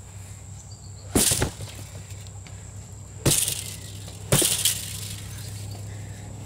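Three hard strikes of a long-handled tool against a freestanding Wavemaster heavy bag: one about a second in, one about three seconds in and one a second after that. Each is a sharp crack that trails off over a fraction of a second, and the first and last are followed by a quick second knock.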